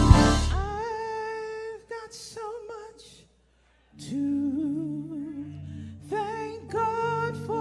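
A woman singing a gospel song unaccompanied, holding long notes with vibrato. She breaks off briefly about three seconds in, then goes on with lower sustained notes underneath.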